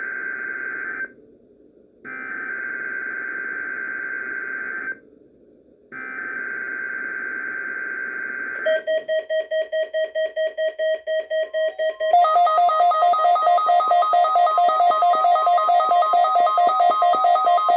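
NOAA Weather Radio Specific Area Message Encoding (SAME) header: three bursts of raspy digital data, opening a Required Weekly Test. An alert tone follows, first pulsing at about four beeps a second, then from about twelve seconds in a louder, steady multi-tone alarm.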